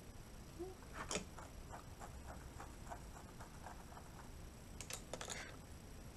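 Faint handling of a makeup brush and eyeshadow palette: a sharper tap about a second in, then a run of light, evenly spaced ticks, about three a second, for about three seconds, and a few sharper clicks near the end.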